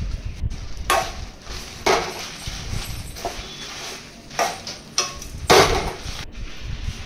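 A metal spoon stirring dried red chillies, lentils and seeds in an aluminium kadai as they roast: uneven scrapes and rattles of spoon and spice against the pan, about one stroke a second.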